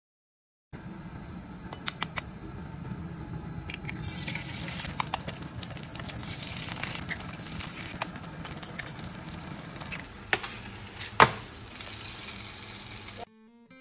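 Eggs frying in oil in a non-stick frying pan, sizzling, with sharp clicks and knocks as a knife taps and cracks an eggshell over the pan; the loudest knock comes near the end.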